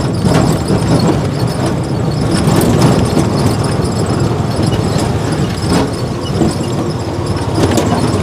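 Engine and road noise of a moving vehicle heard from on board, steady throughout, with a few sharp clicks and rattles.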